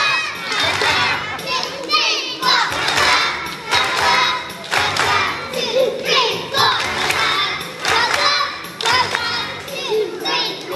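A group of young children singing loudly together, half shouting the words, over backing music, with hand claps among them.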